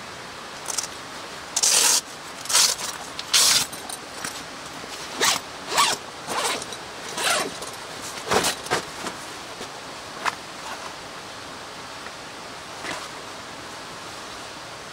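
Stiff canvas of a bedroll cover being handled and pulled open: a run of short scratchy rasps, thickest in the first nine seconds and then dying down to an occasional faint rustle.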